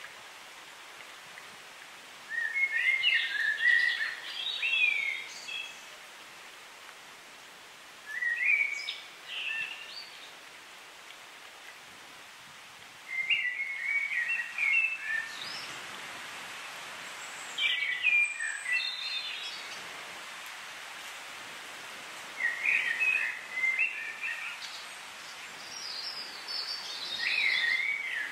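A songbird singing in short, quick phrases with pauses between them, about six phrases, roughly one every five seconds, over a steady background hiss.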